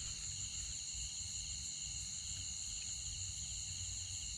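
Steady chorus of insects trilling in several high, unbroken pitches, over a low rumble.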